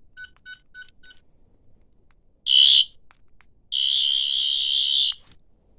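14th Doctor toy sonic screwdriver's electronic sound effect: four quick high beeps, then a short burst of its high electronic buzz, then a longer buzz of about a second and a half that stops sharply.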